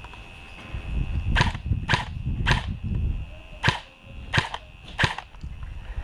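Airsoft gun firing single shots: six sharp cracks at uneven spacing, half a second to a second apart, over a low rumble.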